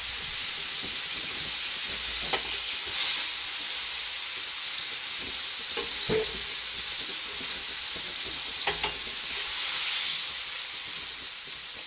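Hot olive oil sizzling steadily in a paella pan as fried prawns are lifted out with a metal skimmer spoon. A few brief clicks of the spoon against the pan are heard.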